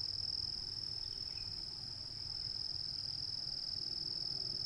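Steady chorus of insects in the trees: one unbroken, high-pitched drone.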